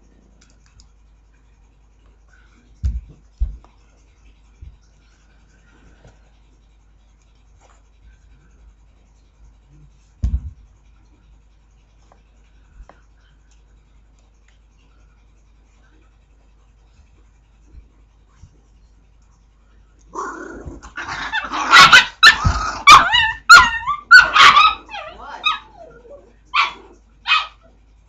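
A mother dog whining and yelping loudly, starting about twenty seconds in: a run of high, bending cries over several seconds, then a few short separate yelps. A few dull thumps sound earlier.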